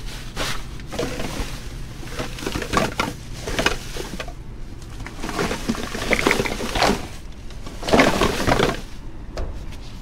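Plastic trash bags rustling and crinkling in irregular bursts as they are grabbed and shifted in a dumpster, the loudest stretches about six and eight seconds in, over a low steady hum.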